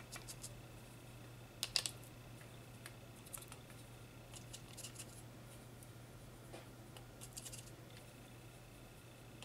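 Watercolour brush scrubbing and tapping in a metal paint tin while mixing paint: faint, scattered clicks and scratches, the loudest pair about two seconds in, over a low steady hum.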